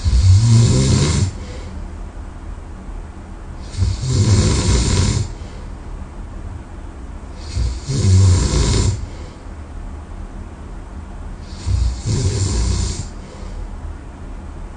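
A sleeping person snoring loudly: four snores about every four seconds, each a little over a second long.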